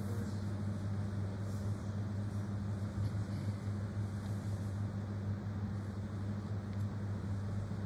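Steady low hum with a broad hiss over it, unchanging throughout.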